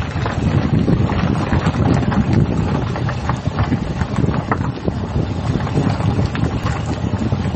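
Vehicle's Goodyear tyres rolling over an unpaved dirt road: a steady, rough low rumble with scattered small clicks and knocks of stones and grit.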